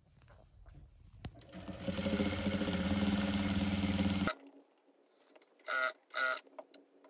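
Jack industrial sewing machine stitching a seam through thick plush fleece. A single click comes about a second in, then the machine speeds up and runs steadily for about two and a half seconds before stopping suddenly.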